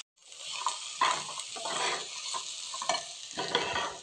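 Metal spoon stirring kidney beans, potatoes and spices in an oiled pressure cooker pot, scraping the pot in several strokes over a steady sizzle: the masala being fried in.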